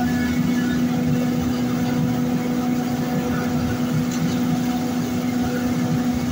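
Tosun Vega-S hay grinder running under load, grinding straw and blowing it out of its discharge spout: a steady machine hum with one strong low tone and a rough rushing layer beneath, unchanging throughout.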